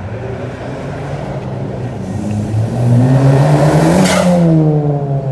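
A car engine accelerating hard and passing close by: its pitch climbs for about two seconds, peaks about four seconds in, then drops as it goes past.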